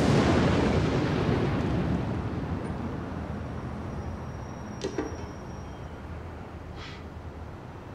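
A loud rumbling boom that dies away slowly over about five seconds, then two faint clicks, about five and seven seconds in.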